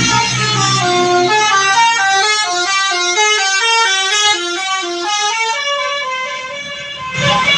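Indonesian bus 'telolet' musical horn playing a quick melody of short, stepped notes, over the low rumble of the bus. A louder rush of noise comes in near the end.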